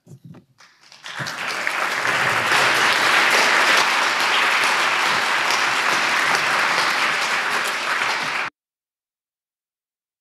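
After a couple of faint knocks, an audience applauds for about seven seconds, building up about a second in and cutting off abruptly near the end.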